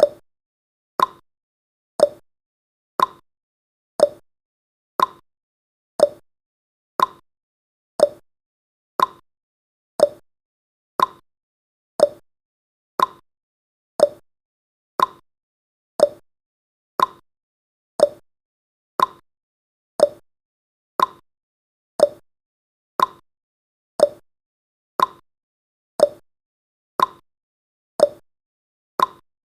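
Clock tick-tock sound effect of a countdown timer: one short tick every second, alternating between a lower and a higher pitch.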